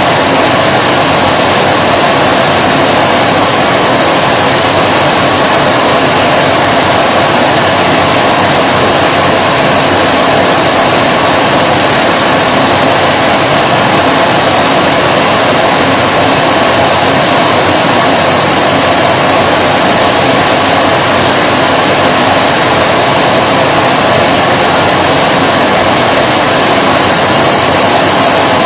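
Vacuum cleaner running steadily, a constant loud rushing hiss of airflow with a motor whine held at one pitch.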